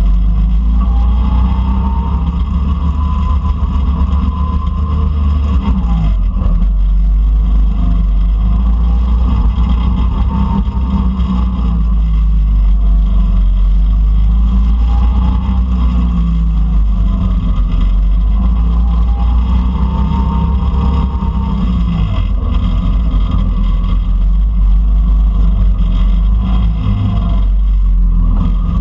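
Go-kart engine running at speed, its pitch rising and falling again and again as the kart accelerates down the straights and slows into the corners, over a heavy steady low rumble.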